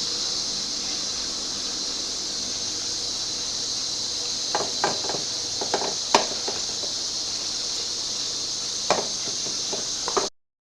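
A few light clicks and knocks of metal engine parts and tools being handled, over a steady hiss. The sound cuts off abruptly near the end.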